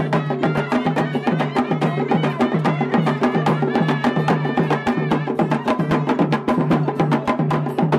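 Loud rhythmic music: fast, even percussion strokes over a low note that pulses in a steady beat.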